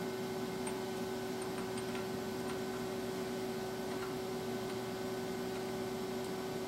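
Steady electric machine hum in a machine shop, a constant tone over a low noise floor, with a few faint, light metal clicks from hand work on the clamped engine block.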